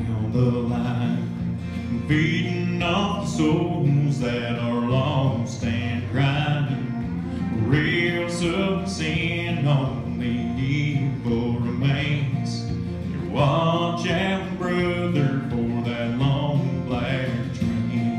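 A man singing a country song into a microphone over guitar accompaniment.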